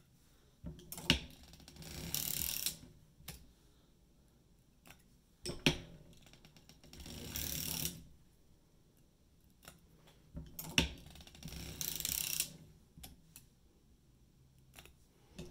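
Hand-cranked circular sock machine knitting heel rows back and forth. Three bouts about five seconds apart, each a few sharp clicks followed by a second or two of rasping clatter as the needles run through the cams, with pauses between.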